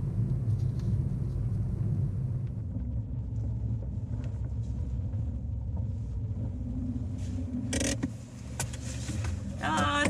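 Car engine and road noise heard from inside the cabin while driving: a steady low rumble. About eight seconds in there is a sharp click and the rumble drops away.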